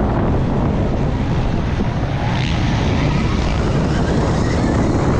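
Heavy wind buffeting on the on-board microphone of a Stark Varg electric motocross bike ridden at race pace, with the bike's faint electric-motor whine and the knobby tyres running over the dirt.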